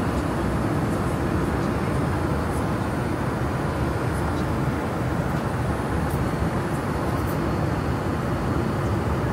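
Steady rush and rumble of a Boeing 787 airliner's engines and airflow in cruise, heard inside the cabin.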